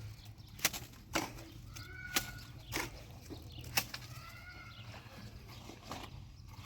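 Chickens calling with short drawn-out notes, over a low steady hum. About five sharp knocks sound at uneven intervals.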